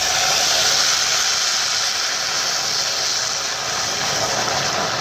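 Loud, steady sizzling hiss as boiled water is poured onto vermicelli frying in a hot pan. It starts and stops abruptly.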